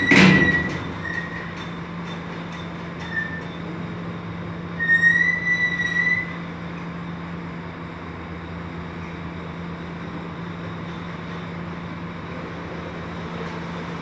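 A sharp metal clank with a squeak at the very start, then a steady low hum with a second high squeak about five seconds in, from the steel body of a livestock transport truck.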